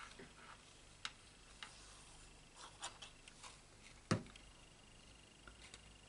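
Quiet handling of card stock on a craft mat: light paper rustles and small scattered clicks, with one louder thump about four seconds in as something is set down.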